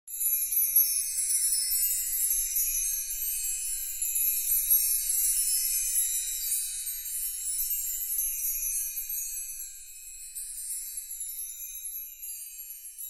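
A glittering, chime-like sparkle sound effect, all high tinkles with no low notes. It starts abruptly and slowly fades away.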